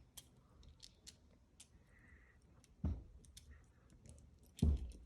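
Lego pieces being handled: scattered light plastic clicks, with a louder knock about three seconds in and another near the end.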